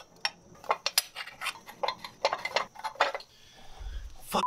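Irregular metallic clicks and clinks of hand tools and bolts being handled against a motorcycle's aluminium engine case as a cover is refitted, with a low handling rumble near the end.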